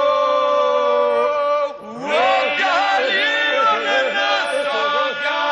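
Male folk group singing Albanian polyphony: a steady held drone under wavering, ornamented solo lines. The voices break off briefly about two seconds in, then come back in together.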